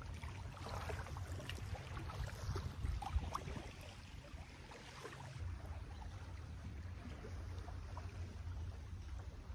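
Wind rumbling on a phone microphone at a lakeshore, with scattered light crackles and the soft lapping of small waves on the shore.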